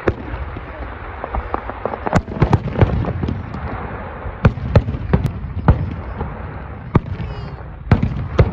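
Aerial fireworks shells bursting, about a dozen sharp bangs at irregular intervals, some in quick pairs, over a steady rumble between them.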